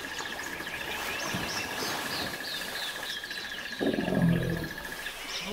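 Wetland ambience: a bird repeating short descending chirps over a steady high pulsing trill, then about four seconds in a short deep grunt from a hippo, the loudest sound.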